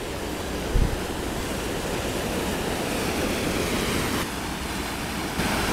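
Mountain river running fast over boulders in whitewater rapids: a steady rush of water. A brief low thump comes about a second in.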